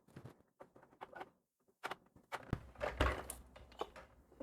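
Faint clicks, scrapes and knocks of a robot vacuum's battery cover being unscrewed and lifted off, with a busier, louder stretch of plastic handling noise from about halfway through.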